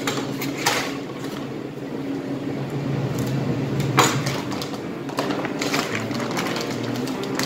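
Plastic wrapping around a bone-in beef rib crinkling and rustling as it is handled, with two sharper crackles, one near the start and one about halfway through, over a steady low machine hum.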